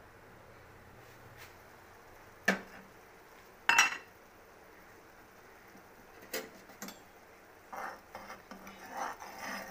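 A glass pot lid clanks twice against a steel saucepan and the stove as it is lifted off and set down, the second knock ringing briefly. Later a spoon clinks and scrapes in the pot as the noodles are stirred.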